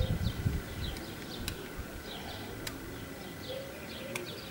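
Small birds chirping in the background, short high chirps repeating irregularly, with a few sharp clicks and low handling rumble in the first second as the pocket watch is turned in the hands.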